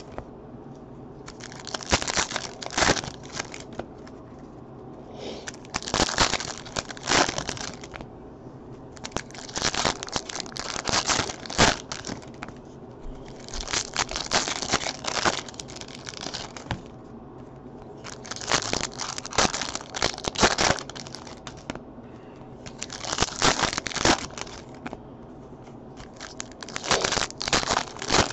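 Foil wrappers of 2015 Topps Chrome football card packs being torn open and crinkled, one pack after another, about seven times with short pauses between.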